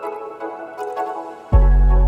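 Background music: soft, melodic notes, then a loud, deep bass comes in about a second and a half in.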